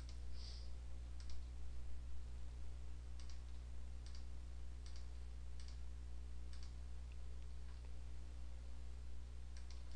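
Computer mouse button clicks, about ten scattered single clicks a second or so apart, over a steady low hum.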